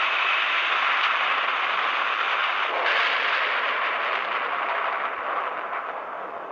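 Atomic bomb blast sound effect in an animated film: a dense, steady rushing hiss that starts fading away about five seconds in.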